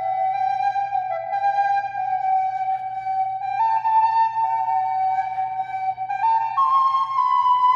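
Soprano recorder (flauta dulce) playing a slow melody in long held notes, stepping up in pitch about halfway through and again near the end.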